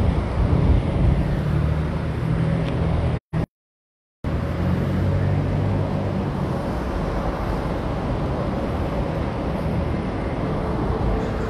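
City street traffic noise: a steady wash of vehicles with a low engine hum in the first few seconds. The sound cuts out completely for about a second, around three seconds in, then the traffic noise returns.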